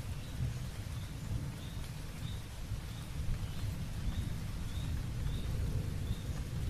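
Outdoor nature ambience: a steady low rumble with a short, high chirp repeating evenly about every two-thirds of a second.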